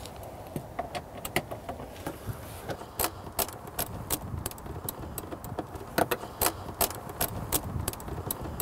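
Ratchet socket wrench with a long extension and 10 mm socket working the bolts of a truck air filter housing cover: scattered short metallic clicks, some in quick pairs.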